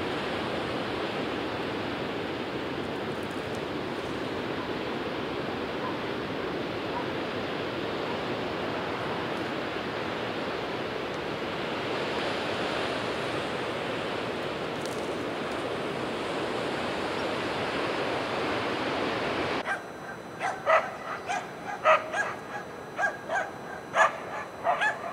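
Steady rush of surf and wind. About twenty seconds in it cuts off abruptly, and a run of short, sharp barks follows.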